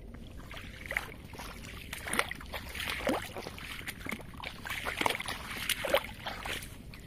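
Irregular sloshing and squelching through wet mud and shallow paddy water, like steps wading in the flooded field, with a couple of sharper splashes about two seconds in and near six seconds.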